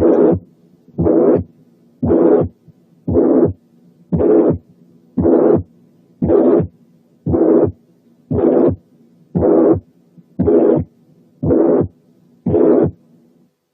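Recorded heart sounds of mitral regurgitation (mitral incompetence), heard through a stethoscope at a steady rate of about one beat a second. Each beat carries a relatively high-pitched, blowing systolic murmur with no harshness.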